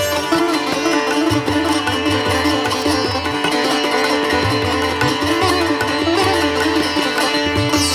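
Background music: a plucked string melody over steady held drones, with a low, pulsing beat.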